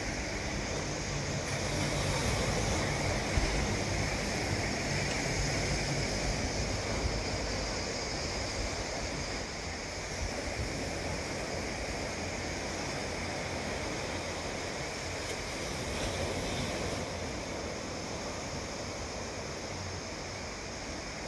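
Sea waves washing onto the shore, a steady rushing noise, with some wind.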